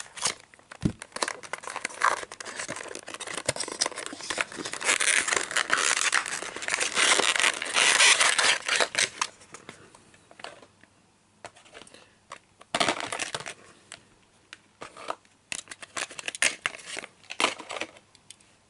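A cardboard Mini GT box pried open with a thin metal tool, then a clear plastic blister tray rustling and crinkling in a long stretch in the middle. Scattered clicks and taps follow as the small diecast car is worked free of the plastic.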